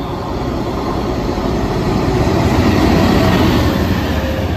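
GBRf Class 69 diesel-electric locomotive, with its EMD 710 two-stroke V12 engine, running light engine and passing close by. The rumble of engine and wheels builds to its loudest about three seconds in, then starts to fade.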